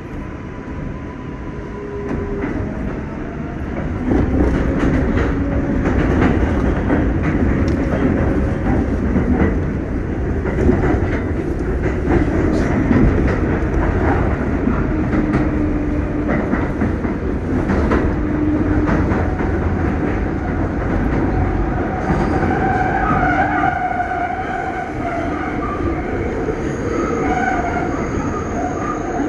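An R188 subway train on the 7 line running along the track, heard from inside the car: a steady rumble of wheels on rail with clicks over the rail joints. It grows louder about four seconds in, and pitched whines come and go over the rumble.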